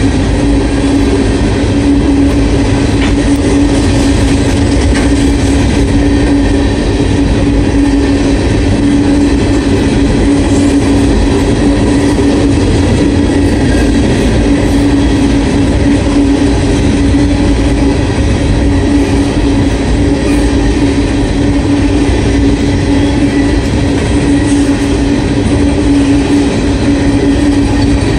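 Norfolk Southern freight train of hopper cars, which the uploader believes are empty, rolling steadily past: the loud continuous noise of steel wheels on rail, with a steady low hum.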